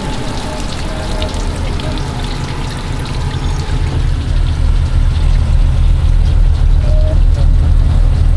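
Heavy tow truck's diesel engine idling with a steady low rumble that grows louder about halfway through.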